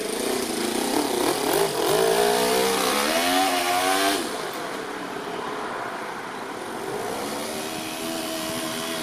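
Toyan FS-L200 inline twin-cylinder four-stroke nitro engine in an RC truck, revving up and down as the truck accelerates and slows. Its pitch rises and falls several times. It is louder for the first four seconds or so, then fainter and steadier as the truck moves off.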